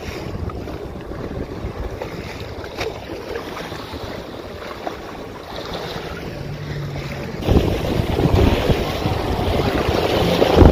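Wind buffeting the microphone over water rushing and splashing around a moving boat, louder from about seven seconds in.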